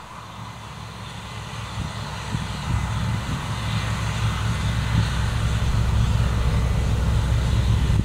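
Case IH Axial-Flow 9120 combine harvester running while it cuts wheat: a steady low diesel rumble with a rushing hiss from the header and threshing machinery. It grows steadily louder as the combine drives closer.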